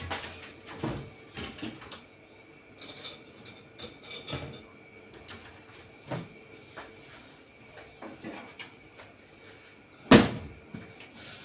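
Scattered knocks and clatters of things being handled and cupboard doors moved in a kitchen, with one loud bang about ten seconds in.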